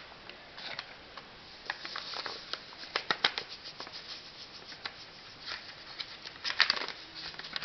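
A packet of cheesecake filling mix being handled and emptied into a mixing bowl: irregular rustling and crinkling with light taps and clicks, busiest about three seconds in and again near the end.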